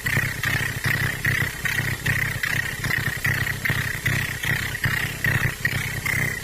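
Hand-made Arduino drone noise synthesizer playing a low, gritty drone that pulses a little over twice a second, with a steady high tone above it that dips slightly in pitch near the end.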